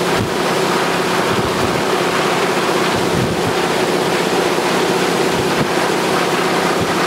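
Propeller aircraft engine droning steadily in flight, mixed with heavy wind rush on the microphone.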